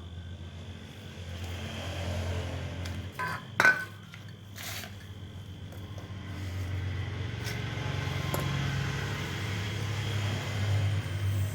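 A motor running with a steady low hum that swells and eases, with a few sharp clicks about three to four seconds in.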